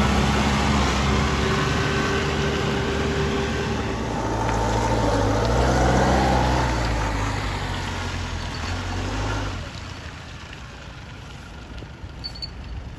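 Cat forklift engine running as it drives a load of veneer, its pitch rising and falling in the middle. It gets clearly quieter about nine and a half seconds in.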